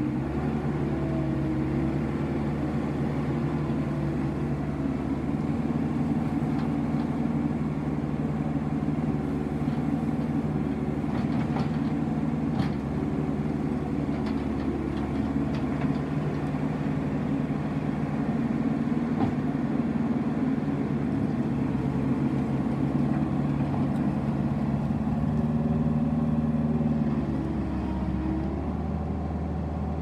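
New Holland C175 compact track loader's diesel engine running steadily while the machine works, lifting its bucket and travelling on its tracks. Near the end the engine note drops and gets a little quieter.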